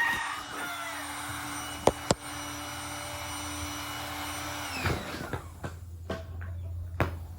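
Electric air pump running steadily, then switched off about five seconds in, its whine winding down. A few knocks and clicks follow as the pump and valve are handled.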